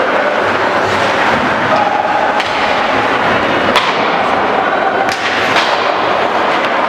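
Ice hockey play: skate blades scraping on the ice in a steady hiss, with four sharp clacks of sticks hitting the puck spread through the middle and later part.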